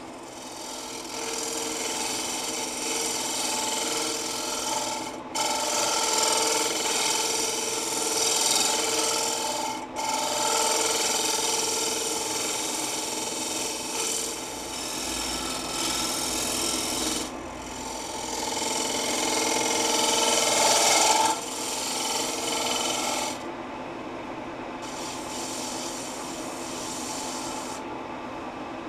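Bent-shank hollowing tool cutting the inside of a spinning Russian olive bowl on a wood lathe: a rough scraping cut in several passes with brief breaks between them, lighter for the last few seconds.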